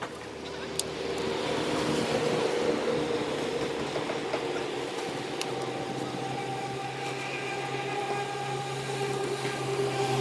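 A steady engine or machine hum with several held tones, swelling over the first two seconds and then holding, with a deeper hum coming in about halfway through.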